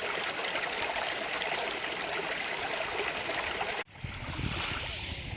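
A stream running steadily, its water splashing and trickling over stones. Nearly four seconds in it cuts off abruptly and a different, deeper noise takes over.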